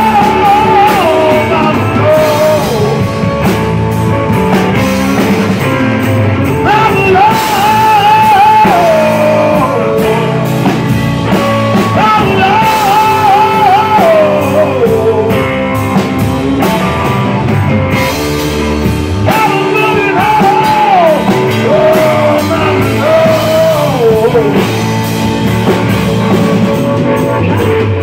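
Live rock band playing loud, with electric guitar, bass guitar and drum kit. A wavering high melodic line recurs about five times, each phrase sliding down at its end.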